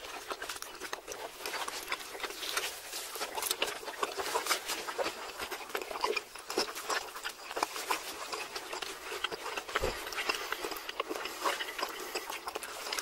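Close-miked chewing of rare steak by several people: a dense, steady run of small clicks and smacks from mouths and teeth.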